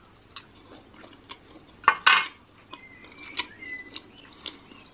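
Wooden chopsticks set down with a short clatter on a metal serving platter about two seconds in, amid faint scattered clicks from eating.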